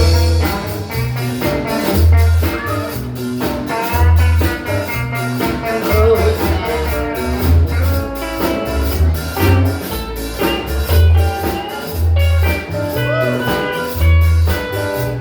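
Live blues band playing an instrumental passage: a bass line stepping between notes under a steady drum beat, with melody instruments above.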